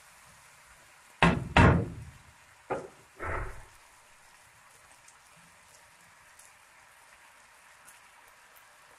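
A spatula knocked against a steel cooking pot: two loud knocks a little over a second in, then two lighter ones, then only a faint steady background.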